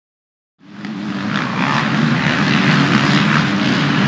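A pack of off-road motorcycle engines running together in a steady drone. It cuts in suddenly about half a second in.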